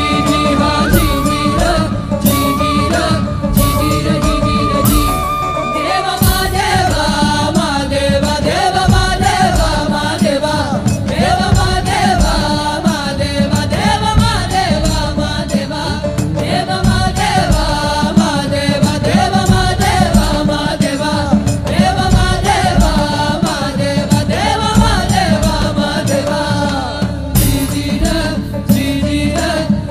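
Music: held, droning tones for about the first six seconds, then a wavering, ornamented melody line with a chant-like character, over a steady, dense drum rhythm.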